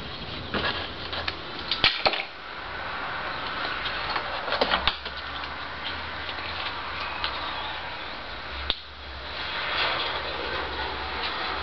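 Clicks, knocks and rustles of hands handling a plastic fuel bottle and clear fuel tubing on a workbench, over a steady low hum. The model glow engine is not running.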